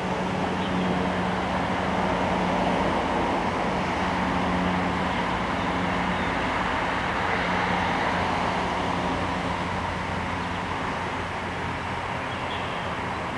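Steady background drone with a low hum that fades in and out, the kind of sound made by distant traffic or machinery.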